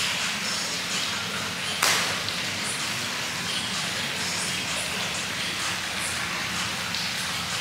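Steady hiss of rain falling, with one sharp knock about two seconds in.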